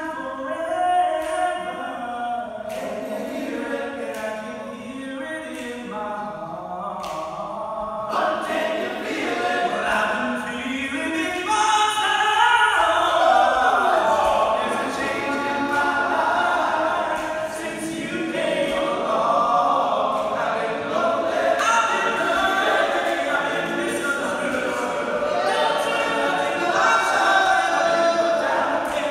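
All-male a cappella group singing in close harmony, without instruments; the voices fill out and grow louder about eight seconds in.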